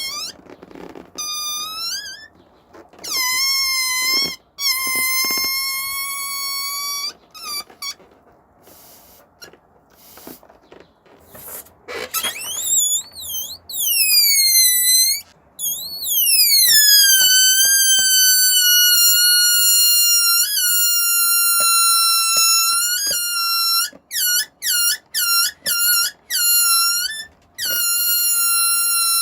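Rubber balloon squealing as air is let out through its stretched neck: short high squeals at first, then after a quieter stretch a long wavering squeal and a long steady one, broken near the end into a quick run of short chirps.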